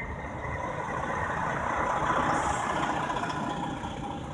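Vehicle noise heard from inside a car driving slowly, a steady rumble with a hiss that swells about halfway through and then fades.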